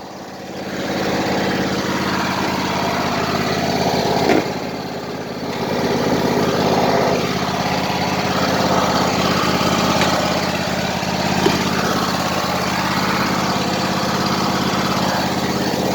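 Small gasoline engine running steadily, with a sharp knock about four seconds in.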